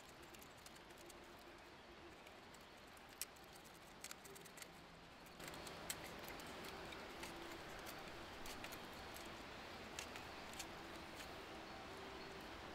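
Victorinox Swiss Army knife blade whittling a forked wooden branch: quiet cutting and scraping with scattered sharp clicks as the blade bites into the wood.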